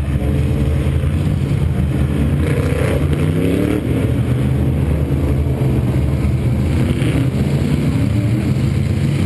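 Push jeep engine idling steadily close by, with supermodified race cars running on the track, their engines rising in pitch as they accelerate about three seconds in and again near the end.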